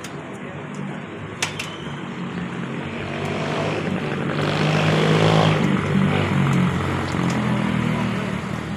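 A motor vehicle's engine hum that swells to its loudest about five seconds in and then eases off. There is a sharp knock about a second and a half in.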